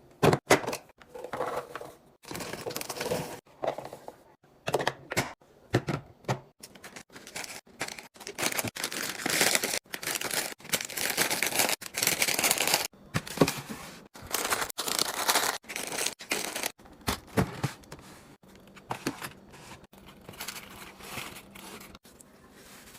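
Packaging rustling and crinkling as groceries are handled and unpacked, broken by short knocks and clicks of items being set down.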